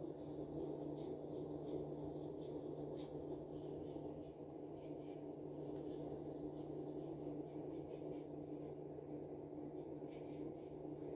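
Steady low room hum with a constant low drone, and faint scattered light ticks over it.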